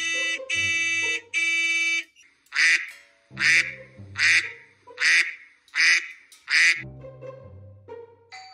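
Duck quacks played as a sound clip: six short, loud quacks about 0.8 s apart over background music, after three long, steady buzzy tones at the start.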